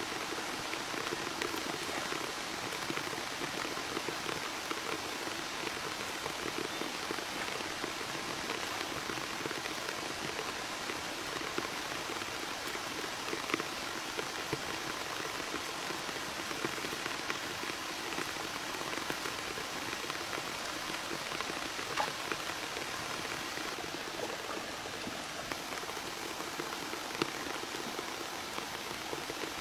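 Steady patter of rain, with many small drop ticks scattered through it and one sharper tick about 22 seconds in.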